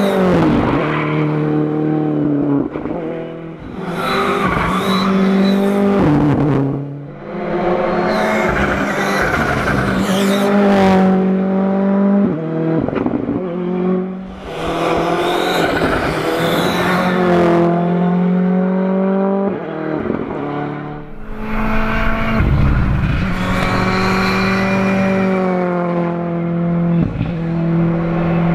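Ford Fiesta R5 rally cars' 1.6-litre turbocharged four-cylinder engines at full throttle, passing again and again. The pitch climbs through each gear and drops at each quick gear change, and the sound briefly falls away between passes.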